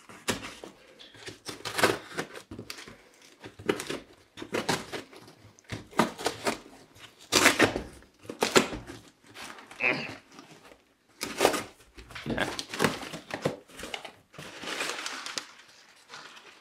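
Cardboard parcel being cut open: a knife slitting along the masking tape and cardboard, tape tearing loose and the box flaps rustling as they are pulled back, in irregular scraping bursts.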